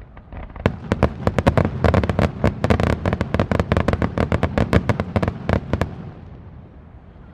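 Aerial fireworks going off in rapid succession, many sharp cracks and bangs overlapping, then dying away to a fading rumble about six seconds in.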